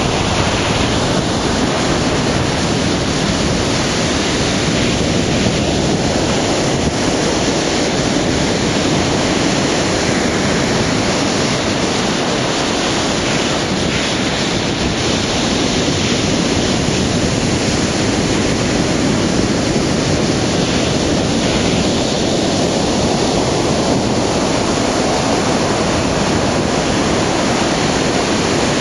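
Ocean surf: waves breaking and whitewater washing up the beach in a steady, continuous rush.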